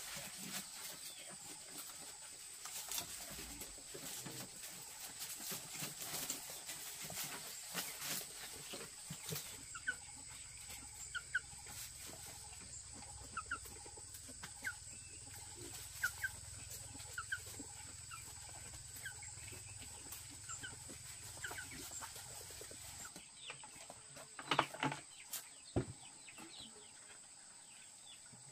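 Poultry calling in short, separate chirps, over clicking and rustling at first and a steady high whine throughout; a few louder knocks come near the end.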